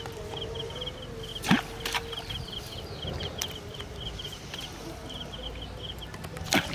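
A small creature chirping in short, rapid, high trills, about two a second, over a steady drone. A few sharp knocks cut through, the loudest about a second and a half in and just before the end.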